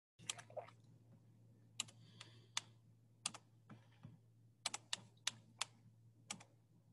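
Sharp, irregular clicking at a computer, about a dozen clicks with a few in quick pairs, over a steady low electrical hum.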